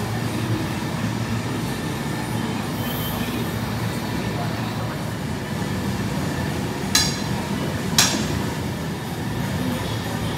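Steady low roar of a glass workshop's gas-fired furnaces, with a steel blowpipe rolling along the metal arms of a glassblower's bench. Two sharp metallic clinks come about seven and eight seconds in.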